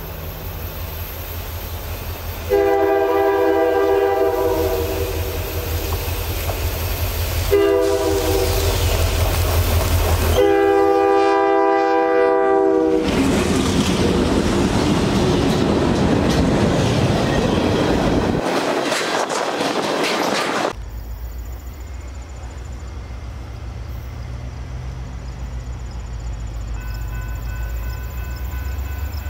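Diesel freight locomotive sounding its multi-chime air horn in three blasts, long, short, long, over the throb of its engine. It then passes close with loud engine and rail noise, which drops suddenly to a lower rumble about three-quarters of the way through.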